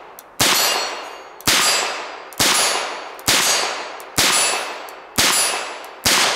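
Smith & Wesson 617 .22 LR revolver fired at a steel gong in slow double action, seven shots about a second apart. Each sharp crack is followed at once by the steel plate's clang, which rings and fades before the next shot.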